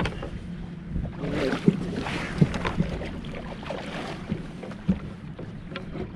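Fishing-boat noise: a steady low hum with wind buffeting the microphone, and a few sharp knocks against the boat.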